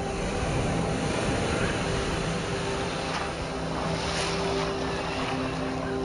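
Sea surf washing onto the beach, with wind on the microphone; the wash grows brighter for a moment around the middle. Under it run steady low droning tones.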